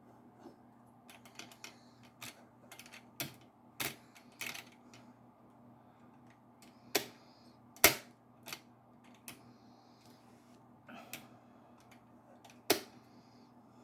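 Irregular mechanical clicks and clacks of a vintage cast-iron White sewing machine's parts being worked by hand, with the loudest knocks about eight seconds in and near the end.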